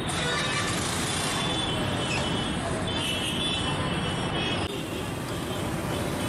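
Hot oil sizzling steadily as round fritters deep-fry in a large wok, over street traffic noise.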